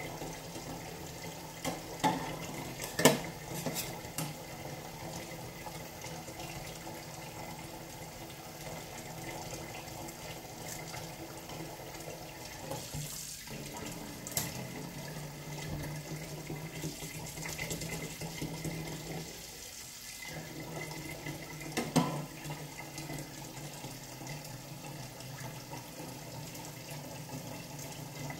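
Kitchen tap running into a sink as a milkfish is washed and cleaned under the water, with a few sharp knocks and clatters; the loudest comes about three seconds in and another near twenty-two seconds. The water sound dips briefly twice.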